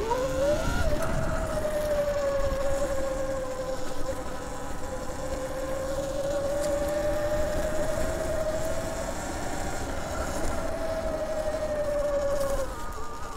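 Sur-Ron electric dirt bike's motor whining under throttle while riding. The whine climbs quickly as it pulls away, holds steady with small rises and dips, and drops off near the end, with wind rumbling on the microphone.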